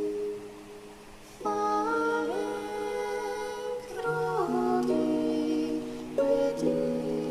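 Soft, slow background music: sustained synth-pad chords that change every couple of seconds, with a gentle gliding lead note, quieter for the first second or so.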